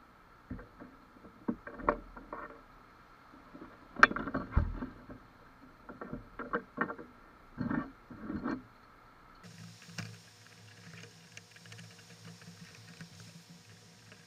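Knocks and clunks of hard kayak fittings and poles being handled and fitted on a plastic pedal kayak, in quick bunches, the loudest about four seconds in. After about nine seconds they give way to faint ticks over a low steady hum.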